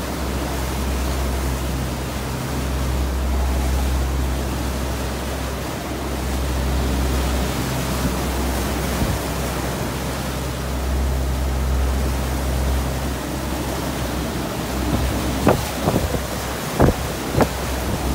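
Wind buffeting the microphone over the steady low drone of a boat under way and the rush of its churning wake. A few brief sharp sounds come near the end.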